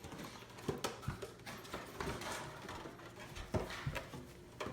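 Pokémon card collection box being opened and handled: scattered clicks, taps and rustles of the packaging.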